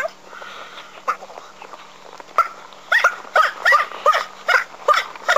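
Dog barking over and over, about three barks a second from about two and a half seconds in, pitched up because the footage runs at double speed.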